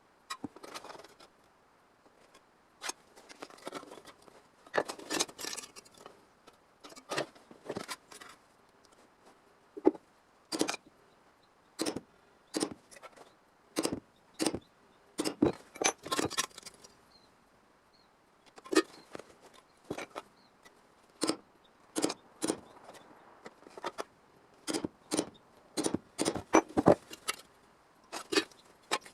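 Irregular sharp metallic taps and clinks, some ringing briefly, with pauses between: hand work on a sheet-steel panel being shaped.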